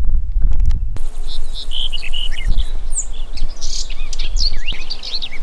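Low wind rumble on the microphone, heaviest in the first second, then many birds chirping and singing in quick short notes over it.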